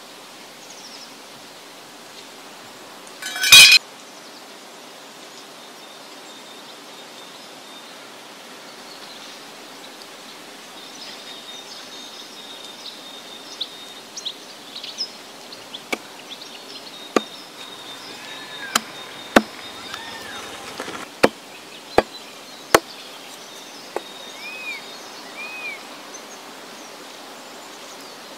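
Heavy knife blade chopping chicken on a wooden block: a run of sharp chops, roughly one a second, through the second half, with one much louder knock a few seconds in. Birds chirp and insects buzz in the background.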